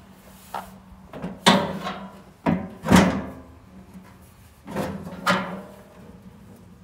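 A series of about six knocks and clunks, some with a short ringing tail, the loudest about one and a half and three seconds in, over a faint steady low hum.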